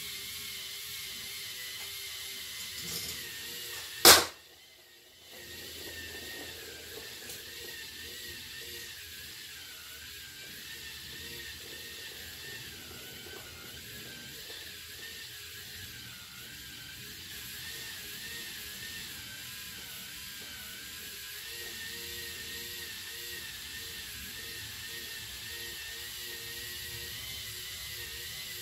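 K'NEX rollercoaster ring lift running: a steady motor whine that wavers slightly in pitch, with the ratcheting clatter of plastic coaster cars travelling round the ring track. About four seconds in comes one sharp, loud click, and the running sound drops out for about a second before it resumes.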